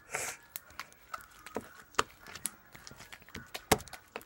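Homemade slime being stretched and squeezed in the hands, giving irregular sharp pops and clicks, the loudest about two seconds in and another near the end, after a short rush of noise at the start.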